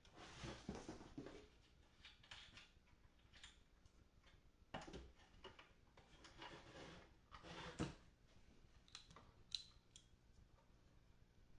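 Faint handling noises from taking apart a guitar amplifier: scattered rustles and scrapes, then a few light sharp clicks near the end.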